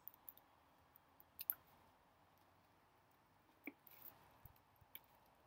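Near silence with a few faint, scattered clicks, the loudest about a second and a half in.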